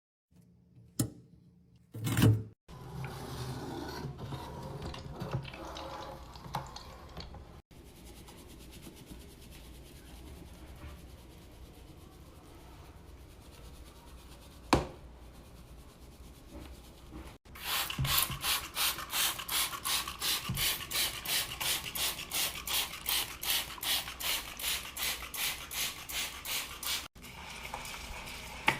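Scrubbing and wiping sounds from a run of short cleaning clips: soft rubbing with a knock now and then. In the second half a brush or scrubber goes back and forth in steady strokes, about three a second.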